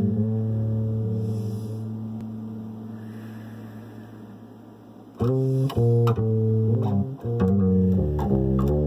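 Electric bass guitar played solo: a low note rings on and slowly dies away, then about five seconds in he starts plucking a run of new low notes.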